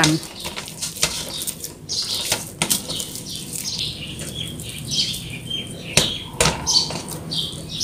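Hands tearing and pressing soft risen bread dough in a stainless steel mixing bowl while dividing it into portions, with irregular knocks and scrapes against the metal bowl.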